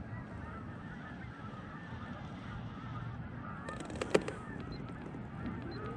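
A flock of geese honking, many calls overlapping throughout, with one sharp click about four seconds in.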